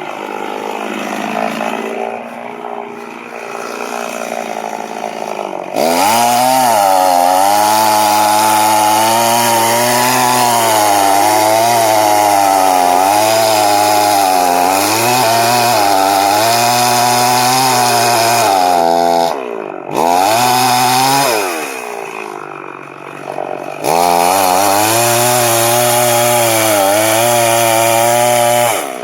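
Chainsaw engine cutting into a tree at full throttle, the felling notch being cut. It runs slower at first, speeds up about six seconds in for a long cut, drops back near twenty seconds with a brief rev, then cuts at full speed again from about twenty-four seconds until shortly before the end.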